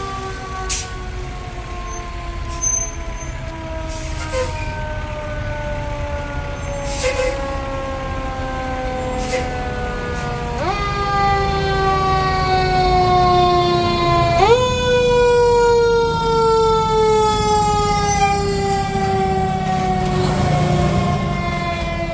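Fire engine's mechanical siren coasting slowly down in pitch, then spun back up sharply twice, about halfway through and again four seconds later, over the low rumble of the truck's engine. It grows louder as the engine approaches and passes.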